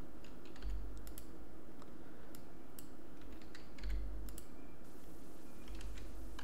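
Computer keyboard keys and mouse buttons clicking at an irregular pace, single scattered clicks over a steady low room hum.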